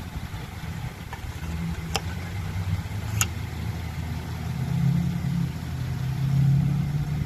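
Car engine idling steadily, a little louder in the second half, with two sharp clicks about two and three seconds in.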